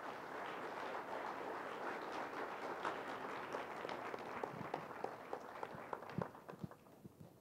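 Audience applauding, thinning out to a few scattered claps near the end.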